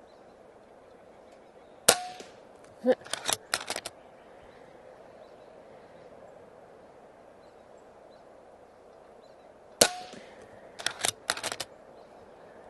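Two shots from an Umarex Zelos .22 PCP air rifle, about eight seconds apart, each a sharp crack followed about a second later by a quick run of clicks.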